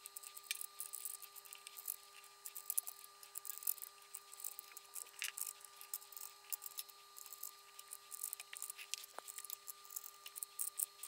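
Faint, irregular small metallic clicks and taps as balance-lead ring terminals are set onto battery terminal studs and serrated flange nuts are spun down by hand. A faint steady hum runs underneath.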